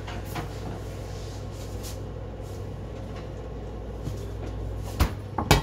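A plastic bottle of sunflower oil handled and poured over a non-stick frying pan, with a steady low hum underneath and two sharp knocks about five seconds in.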